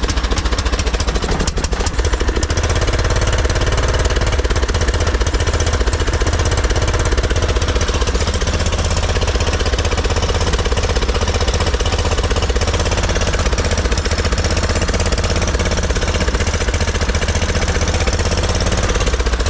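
Craftsman LT1500 riding mower engine running steadily, its carburetor's low-side jet freshly drilled out to cure surging. It runs a little better but still not at its best. A few sharp clicks sound about a second and a half in.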